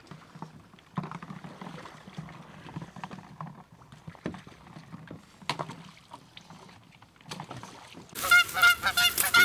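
Quiet kayak paddling, with water and a few sharp knocks of the paddle against the hull. About eight seconds in, a flock of Canada geese breaks into loud, rapid honking.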